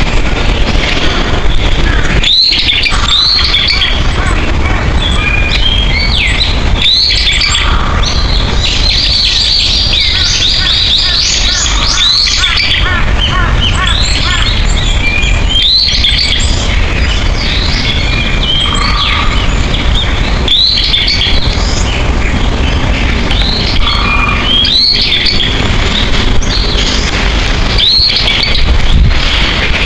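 Several wild birds singing and chirping, with one call sweeping upward repeated every four or five seconds and a fast trill of quick notes midway. A steady low rumble runs beneath.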